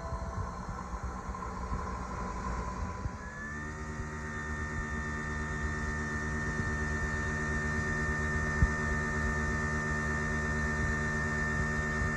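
A low steady rumble, then a machine starts humming with a steady whine about three seconds in, runs at an even pitch, and winds down in pitch as it shuts off near the end.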